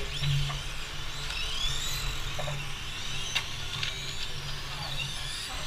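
Electric motors of radio-controlled 1/10-scale Formula 1 cars whining as they accelerate and brake around the track, several overlapping whines rising and falling in pitch. There is a sharp tick about three and a half seconds in.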